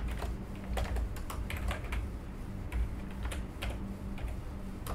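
Computer keyboard being typed on, irregular quick keystroke clicks, over a low steady hum.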